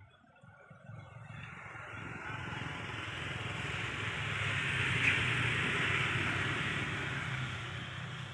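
A motor vehicle passing by, its engine and tyre noise swelling over several seconds to a peak about five seconds in, then fading.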